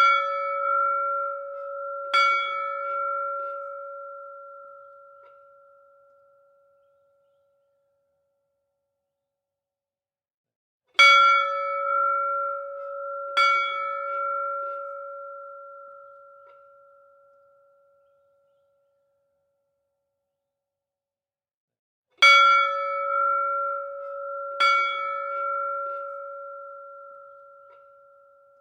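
A bell struck twice in quick succession, about two and a half seconds apart, then left to ring out. Each strike rings with a clear low and higher tone that fade over several seconds, and the pair repeats about every eleven seconds, three times in all.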